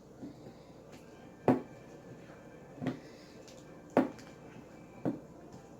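Four sharp knocks, about a second apart, with low background noise between them.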